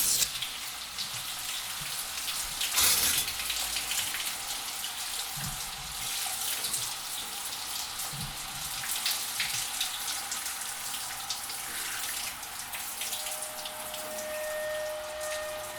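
Shower water running and spraying steadily. Near the end a couple of faint steady tones come in over it.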